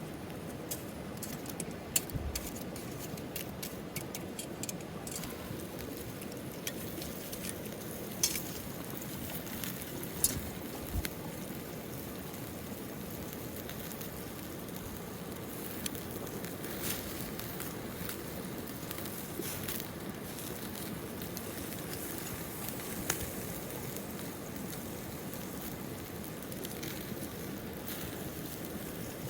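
Wood campfire crackling: a steady low hiss with scattered sharp pops and snaps, a few louder ones in the first dozen seconds.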